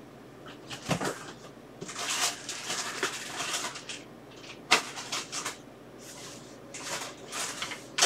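Rummaging through a pile of cables: intermittent rustling and light clatter, with a sharp click a little before the middle.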